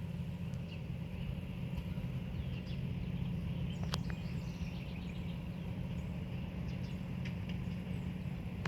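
Steady low rumble of an F40PH-3C diesel locomotive's engine running, with a few scattered bird chirps.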